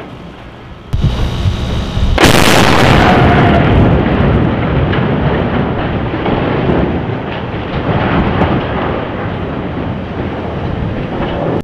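Controlled-demolition blast from the explosive charges cutting the steel bridge truss: a sharp crack about a second in, then a heavier, louder boom a second later. A long, slowly fading rumble and crash follow as the steel truss falls into the water.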